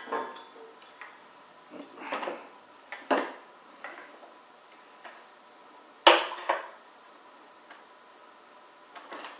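Steel parts of a gantry crane's beam trolley clinking and clanking as they are handled and fitted onto the I-beam: about half a dozen separate metal knocks, the loudest about six seconds in.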